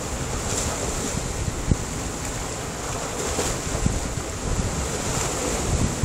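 Sea surf washing over a rocky shoreline: a steady rushing hiss of breaking waves and foam, with a few sudden low thumps along the way.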